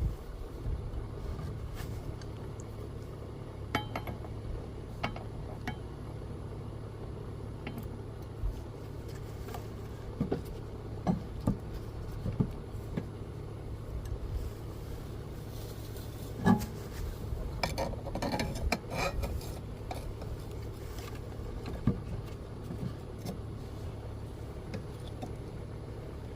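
Scattered metallic clinks and clanks of a breaker bar, socket and steel extension pipe being handled and worked on a lawnmower blade bolt, over a steady low hum. One louder clank comes about sixteen seconds in, followed by a quick run of clinks.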